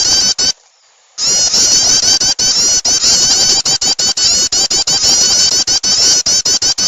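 Prinia (prenjak) calls played as a bird-lure recording: rapid, dense runs of high chirps, broken by many short abrupt gaps, with a pause of about half a second starting about half a second in.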